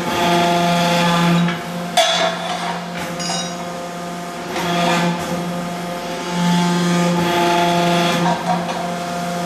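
Pipe press machinery running with a steady hum that grows louder twice, as a stainless steel pipe is worked in the press's steel dies. A sharp metallic knock about two seconds in, then a brief clatter with a high ring, as the pipe strikes the dies.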